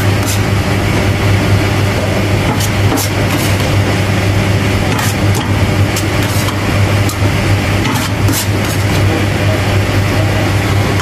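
A steady, loud low engine hum runs throughout, with scattered sharp metal clinks and scrapes as a steel spoon scoops shawarma filling from a steel serving tray.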